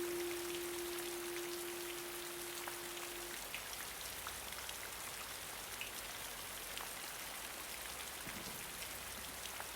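Steady rain with scattered drops pattering on a surface. A single held note lingers and stops about three seconds in.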